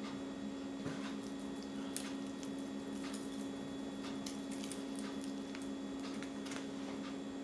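Scattered light clicks and taps of food containers being handled, over a steady low hum.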